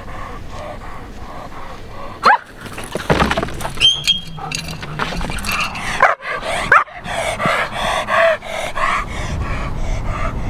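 A German Shepherd whining and yelping while held back by its harness, with sharp barks about two seconds in and again around six to seven seconds in.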